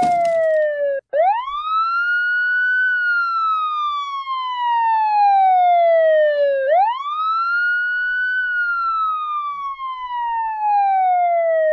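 Police siren with a slow wail: twice, the pitch climbs quickly and then sinks steadily over about five seconds.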